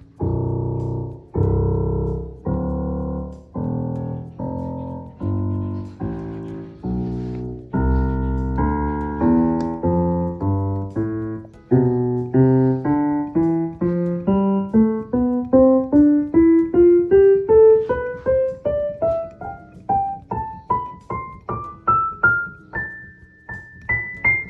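Roland FP-30X digital piano being played: full low chords struck about once a second, then from about halfway a run of notes climbing steadily up the keyboard into the high register.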